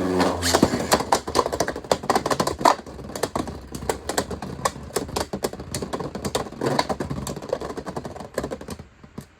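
Two spinning Beyblades, a 3D-printed top and a Beyblade X Dran Sword, clashing in a plastic stadium: rapid irregular clicking and clacking with a brief whir at the start. The hits thin out and fade near the end as the tops lose spin, ending the round in a spin finish.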